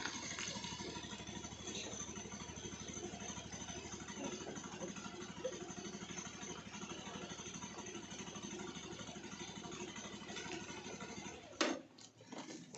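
Motorcycle engine idling steadily, then stopping after a sharp click near the end.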